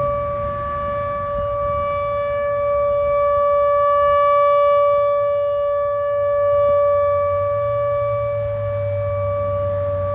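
ATI HPSS-16R electronic outdoor warning siren sounding a super loud, steady high-pitched tone that holds one pitch, its loudness swelling and easing slightly.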